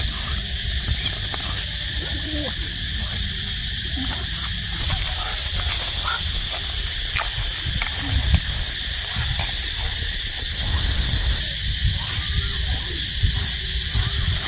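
Outdoor chorus of calling wild animals: a steady high-pitched drone over a low rumble, with scattered clicks and short calls.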